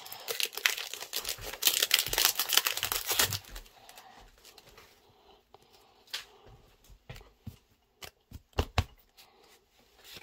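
Foil wrapper of a Pokémon Celebrations booster pack crinkling and tearing open for about the first three and a half seconds. After that come quieter, scattered clicks and rustles of trading cards being handled and flipped through.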